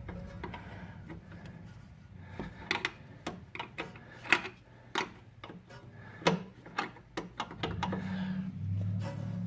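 Irregular sharp metallic clicks and taps of a wrench being fitted onto and worked against the brake line fitting where the hard line meets the rubber hose, as the nut is loosened.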